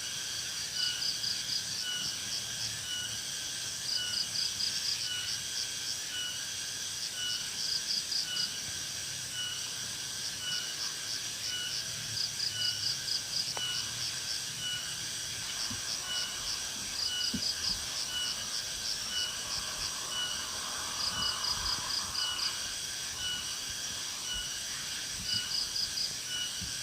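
A chorus of insects chirring steadily in a regular pulsing rhythm. Short, rapid high trills of a few clicks each come in again every couple of seconds.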